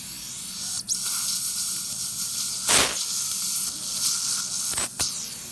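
Dental surgical suction tip hissing and slurping blood and fluid from the surgical site, with a loud surge about halfway through and sharp sucking clicks near the start and near the end.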